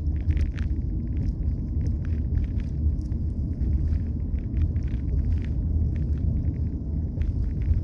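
Steady low rumble of a car's cabin, with frequent small clicks and rattles from a plastic toy being handled close to the microphone.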